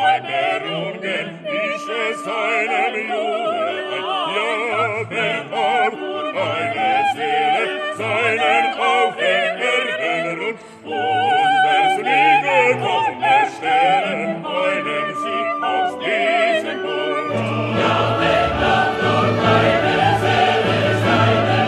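Background music: operatic singing with strong vibrato over choir and orchestra, growing fuller in the low end about three-quarters of the way through.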